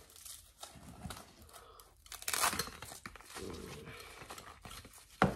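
Crinkling packaging and rustling fabric as a small backless folding camping stool is unwrapped and opened out, with a louder rustle about two seconds in and a sharp knock just before the end.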